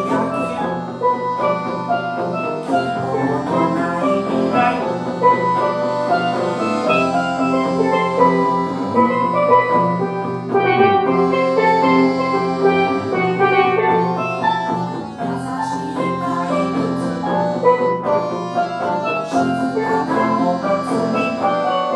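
Live band playing an instrumental passage: a busy melody of short, bright pitched notes over a sustained lower accompaniment.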